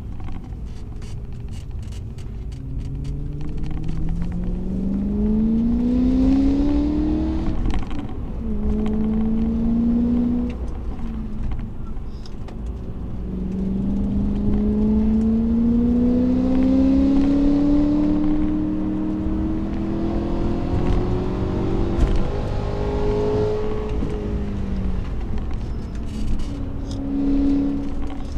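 BMW E92 M3's 4.0-litre V8 pulling hard through the gears of its manual gearbox. The engine note rises in several long climbs, drops back at each gear change or lift, then climbs again, over a steady low rumble.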